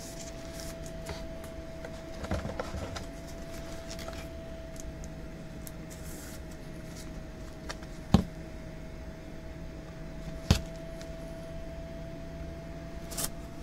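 Steady electrical hum on one tone, with a few sharp taps from trading cards and card holders being handled on a desk, about eight and ten and a half seconds in and again near the end.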